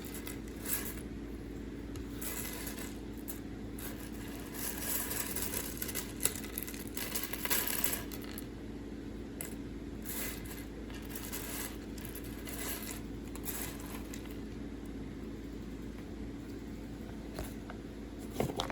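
Small plastic LEGO pieces clicking and rattling as they are handled and sorted, in scattered clusters with quieter gaps, over a faint steady hum.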